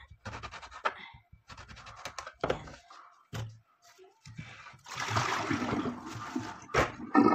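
Kitchen knife cutting an eggplant into rounds on a cutting board: a few short strokes, then a couple of seconds of scraping and rustling, and a single sharp knock near the end.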